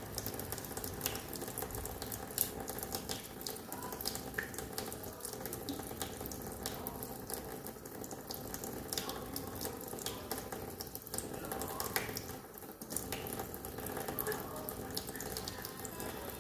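Water running from a tap into a sink, splashing with many irregular ticks and drips as a cat paws at the stream.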